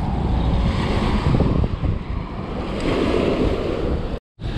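Wind buffeting the microphone over small waves washing onto a rocky shore, with a wave surging up about three seconds in. The sound drops out for a moment near the end.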